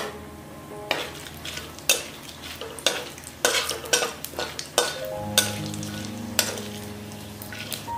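Whole spices (bay leaves, cardamom, cinnamon) sizzling in hot oil in a metal kadai while a spatula stirs them, scraping and tapping against the pan in a series of short, irregular strokes.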